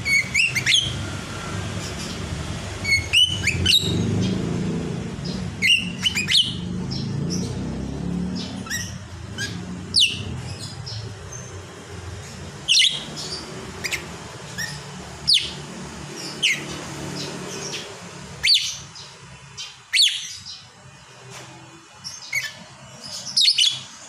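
Caged lovebird chattering: short, sharp, high chirps that sweep upward, one or a few at a time, every second or two.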